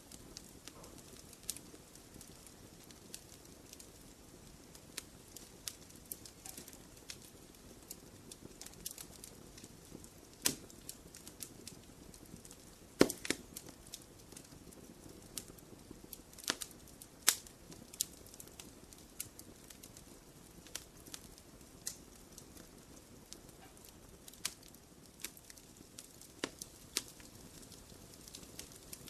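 Wood fire crackling in a fireplace: a soft steady hiss under irregular sharp pops, a few much louder snaps scattered through.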